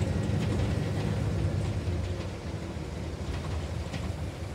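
Interior rumble of a city transit bus under way: a steady low engine and road drone that eases off a little about halfway through, with a few faint rattles.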